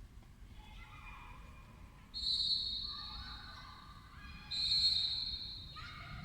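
Soft background music: a slow melody of held notes, with two louder high notes that start suddenly about two seconds in and again about four and a half seconds in, each fading away.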